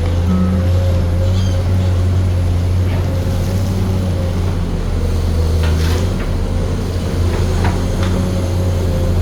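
Excavator running steadily, a low drone with a steady whine over it, with a few light clicks or knocks about three, six and eight seconds in.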